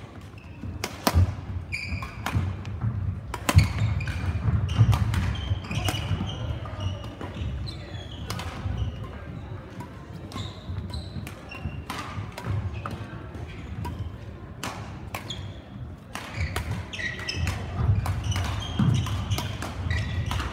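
Badminton play in a large sports hall: sharp racket-on-shuttlecock hits, short squeaks of court shoes and footfalls on the sports floor, from this and neighbouring courts, echoing in the hall.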